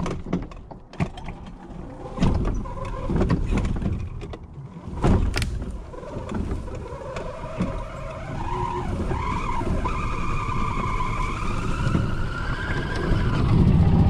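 Golf cart creeping down a steep, rough trail: knocks and rattles as it bumps along, then a high wavering squeal that slides up and down in pitch over the second half, with the cart getting louder near the end.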